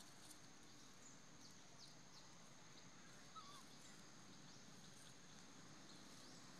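Near silence: faint outdoor ambience with a steady high-pitched insect drone, a few short faint bird chirps, and one brief soft squeak about three and a half seconds in.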